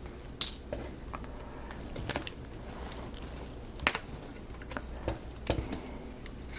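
Wooden marble-run pieces being handled and fitted together: a few scattered sharp clicks and taps, the loudest about two and four seconds in.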